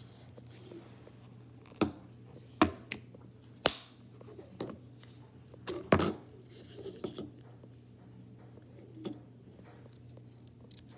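Handling noise from a small plastic power bank and a phone on a stone countertop: a series of sharp clicks and knocks, the loudest about six seconds in, over a low steady hum.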